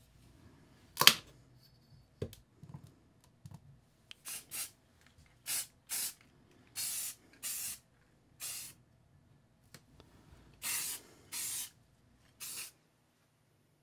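Aerosol spray-paint can spraying red paint in about ten short hissing bursts, starting about four seconds in. A single sharp knock comes about a second in.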